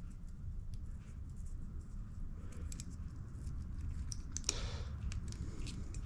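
Hands handling a corroded Honda GCV160 carburetor: light clicks and scrapes of its metal parts, with one louder scrape about four and a half seconds in, over a steady low hum.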